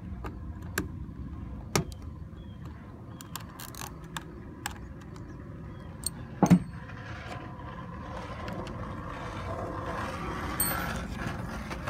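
Scattered small clicks and knocks of a screwdriver and screws against a plastic instrument cluster housing as its screws are driven in, the loudest knock about six and a half seconds in. A low background rumble runs underneath and grows a little louder near the end.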